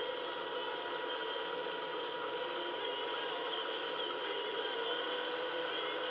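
RC jet boat's motor and water-jet pump running steadily at a constant speed, with a steady whine over the rush of the jet stream spraying into the water.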